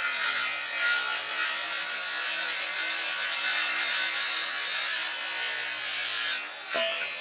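Saw cutting through wood with a steady rasp and a faint hum underneath. It stops suddenly about six seconds in, followed by a single short knock.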